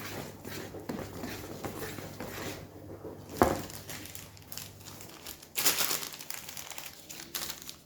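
Crinkling and rustling of a paper or plastic packet being handled and torn open, with scattered sharp clicks and a louder rustle a little past halfway.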